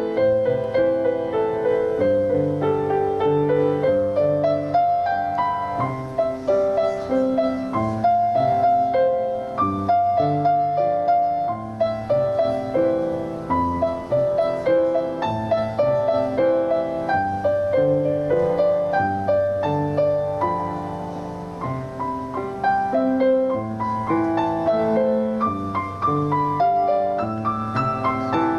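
Solo piano playing a slow, flowing piece of chords and melody.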